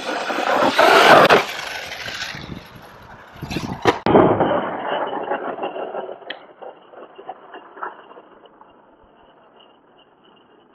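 Arrma Kraton EXB 6S RC monster truck running hard over dirt, its motor and tyres loudest about a second in. A sharp knock comes about four seconds in as it launches off the jump. The sound then fades away while the truck is high in the air.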